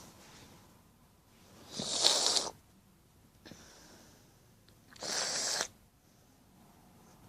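Two loud, hissing breaths from a person, each under a second long, about three seconds apart.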